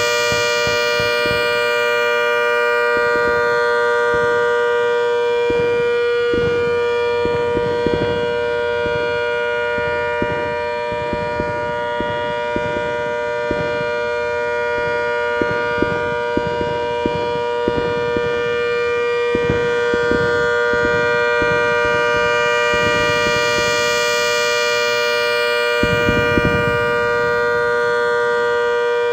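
Rotating electromechanical warning siren holding a steady tone at full speed. Its loudness fades and swells slowly as the horn turns away and back.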